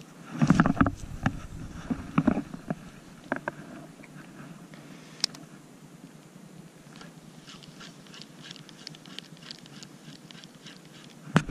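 Jacket fabric rubbing over a chest-mounted camera's microphone about half a second in, then scattered small clicks and, later, a run of light quick ticks from a spinning reel being handled.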